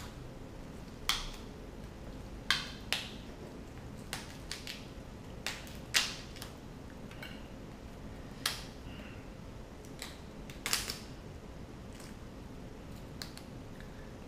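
Steamed red king crab shell being broken apart by hand: a series of sharp cracks and crunches, about a dozen spread unevenly, the loudest around six seconds in.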